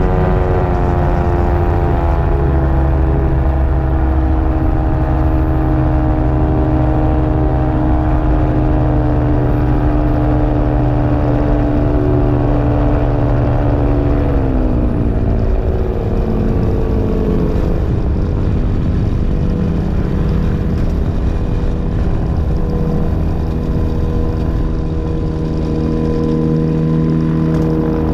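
Aerolite 103 ultralight's engine and propeller running loud and steady under power. About halfway through it is throttled back, the note falling to a lower steady pitch.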